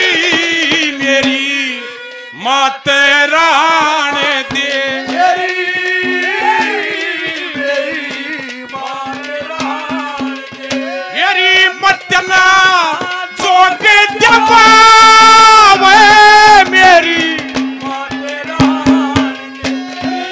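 A male voice singing a Haryanvi ragni over hand drums beating a rhythm and a steady low drone. The singing is loudest in a long held passage about two-thirds of the way through.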